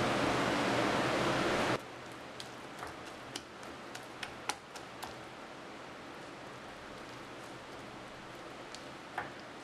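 A loud steady hiss cuts off suddenly about two seconds in. After it, faint irregular clicks and soft taps come as a hand squeezes and stirs besan batter in a glass bowl, fingers knocking against the glass.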